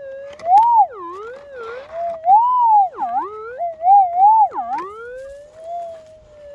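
Metal detector's steady threshold tone warping up and down in pitch in several swoops and dips as the coil passes over the dug hole, then settling back to a steady hum near the end. The swoops are the detector's target signal, here from gold in the hole.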